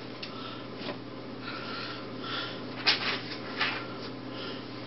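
Faint room tone with a steady low hum, a few soft rustles and a sharp click about three seconds in.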